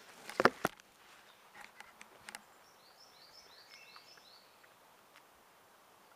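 A few sharp knocks of handling on the camera in the first second. Then a small bird sings a short, quick run of about eight high, falling notes about three to four seconds in, over faint woodland hiss.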